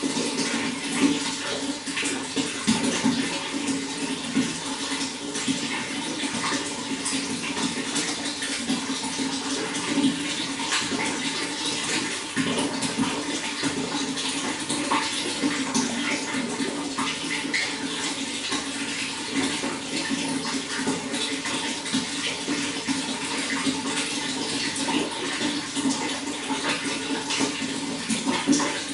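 Running water flowing steadily: a continuous splashing flow with many small drips and splashes on top, unbroken throughout.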